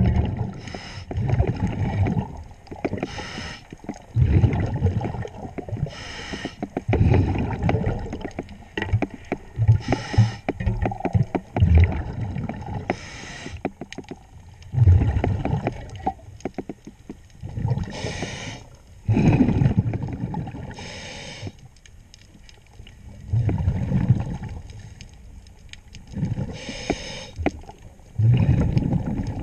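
Diver breathing underwater through a regulator: a hissing inhale every few seconds, each followed by a rumbling burst of exhaled bubbles.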